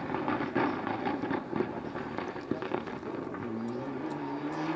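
Rally car engine running, with scattered sharp pops and crackles; a steady engine note sets in about three and a half seconds in.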